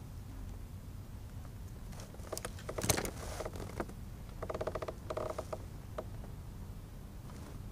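Handling noises in a plastic kayak: scattered clicks and knocks, the loudest about three seconds in, then two short creaks about halfway, over a steady low rumble of wind.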